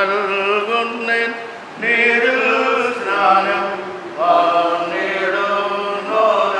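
Liturgical chanting: voices singing a slow hymn in long held phrases, with brief breaks between them.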